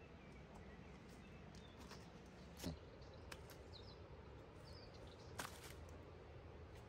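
Near silence: quiet outdoor background with a few faint bird chirps and two soft knocks, about two and a half seconds apart.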